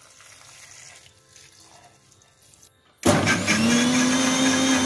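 Water poured faintly into a stainless-steel mixer-grinder jar of hibiscus petals and sugar. About three seconds in, the electric mixer grinder switches on suddenly and runs loudly and steadily, blending the flowers. Its motor whine climbs briefly as it spins up, then holds one pitch.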